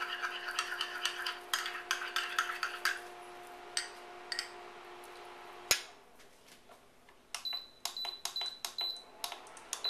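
A metal spoon clinking rapidly against a small glass bowl as a beaten egg is stirred with hot béchamel to temper it, for about three seconds over a steady hum. About halfway through comes a single sharp click and the hum stops; near the end there is a run of short, high electronic beeps.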